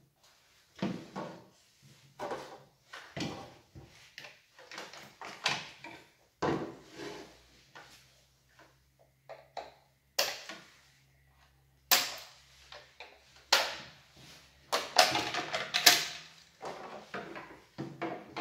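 Irregular knocks, clicks and plastic clatter from a Husqvarna 445 II chainsaw being worked on at a wooden bench: a screwdriver turning the top cover screws and the plastic top cover being lifted off. The loudest clatter comes in the second half.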